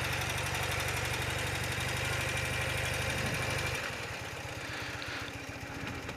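Old BMW motorcycle's engine running at low speed while the bike rolls slowly. About four seconds in, the engine note drops and gets quieter as the throttle is eased off.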